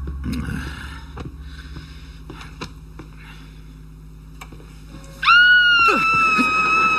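A woman lets out one long, high scream of fright, starting suddenly about five seconds in. Before it there are a few quiet seconds with faint knocks.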